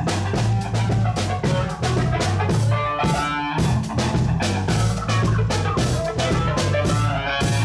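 Live band playing an instrumental funk groove: drum kit keeping a steady beat of dense, regular hits over a bass line, with guitar.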